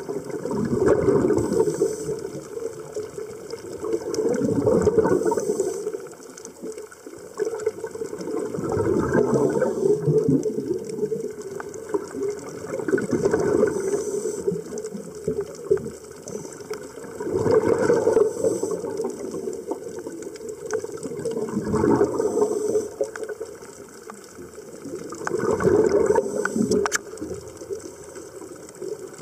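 Scuba divers breathing through their regulators underwater: exhaled bubbles rush and gurgle in a swell about every four seconds, with quieter inhales between.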